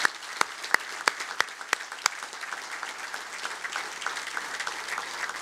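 Audience applauding, with a few louder single claps standing out in the first two seconds before it settles into steady clapping.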